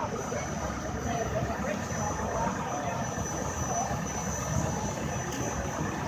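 Murmur of an outdoor crowd over a steady low rumble.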